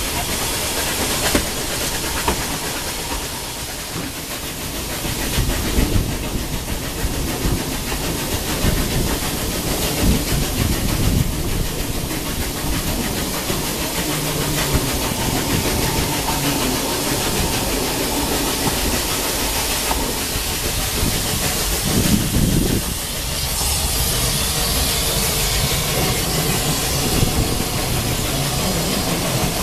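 Narrow-gauge steam train on the move, heard from an open carriage window: a steady rumble and rattle of the coach running on the track, with the hiss of the steam locomotive working at the head of the train.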